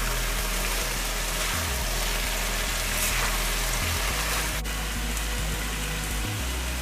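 Stewed cabbage and chicken sizzling in a wok, a steady even hiss, with one light click a little past halfway.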